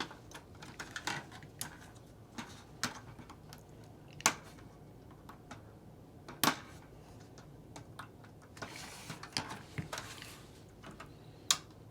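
Irregular small clicks and taps of tools and plastic and metal parts being handled while a stereo's cassette mechanism is taken apart, with three sharper clicks and a brief scraping about two-thirds of the way through.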